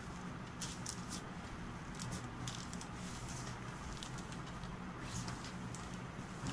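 Faint rustling and handling of cotton dress material as it is unfolded by hand, a few soft brushes of cloth over a steady low hum.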